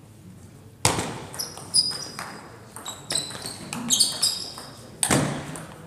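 Table tennis rally: the ball clicks off the bats and the table in quick succession, with short high squeaks of sports shoes on the gym floor between the hits. The rally starts about a second in, and a last sharp hit comes about five seconds in.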